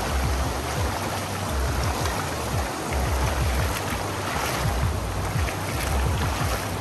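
Steady rushing of floodwater, with wind buffeting the microphone in irregular low thumps.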